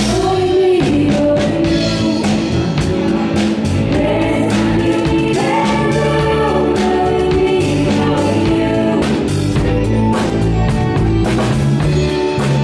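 Live pop band playing: a woman singing lead into a microphone, other voices joining in, over drums and electric bass guitar.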